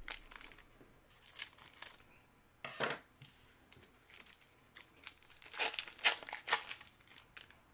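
Trading-card packaging being torn open and crinkled by hand, in irregular rustling bursts, the loudest cluster in the second half.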